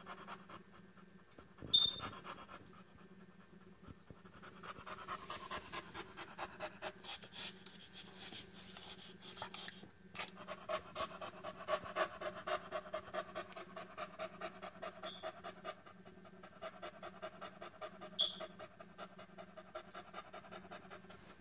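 Heavily pregnant fawn boxer bitch, due to whelp, panting steadily with her tongue out, about three pants a second, growing stronger about four seconds in. A brief sharp knock about two seconds in.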